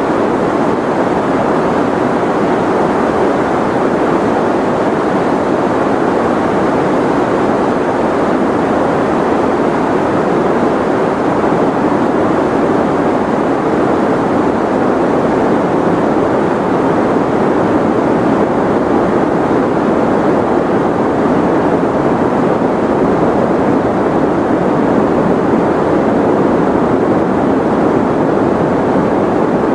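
Steady sleep-aid white noise: an even, unbroken rushing hiss, deeper than pure white noise, with most of its weight in the low and middle pitches.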